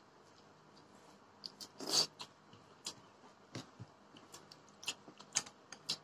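Close-up eating sounds: scattered small mouth and finger clicks as rice and curry are eaten by hand from plates, with one louder smack about two seconds in.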